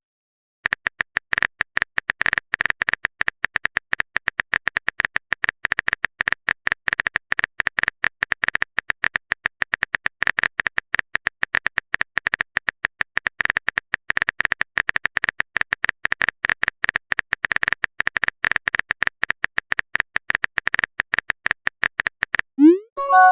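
Keyboard typing sound effect: a long, rapid, unbroken run of clicks. Near the end it stops and a short rising message-alert tone sounds.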